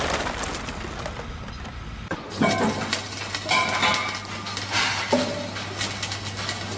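Scattered light clinks and knocks over a steady low hum, starting about two seconds in.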